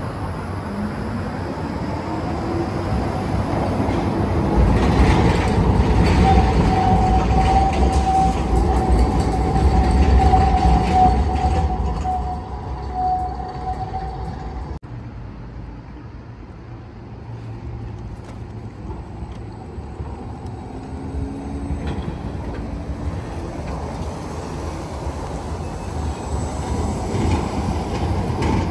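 A Dresden city tram passing: its motor whine rises in pitch as it pulls away, then it runs past loudly with a steady high-pitched squeal for several seconds. About halfway through the sound changes abruptly, and another tram is heard approaching more quietly and growing louder near the end.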